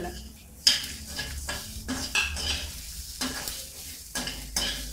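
A spatula stirring and scraping browned onions, dried red chillies and spices frying in oil in a black kadai, with a low sizzle underneath. The strokes come in a quick, uneven run of two or three a second, the loudest about half a second in.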